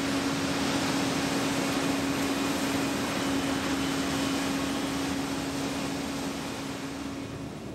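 Shipboard machinery running steadily during the crane lift of a submersible: an even mechanical hiss with a steady hum that stops shortly before the end, as the sound fades out.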